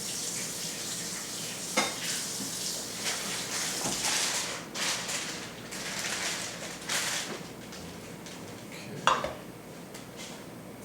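Water from a kitchen tap splashing in a sink, surging unevenly, with a couple of sharp knocks of dishes; the splashing dies down about seven seconds in.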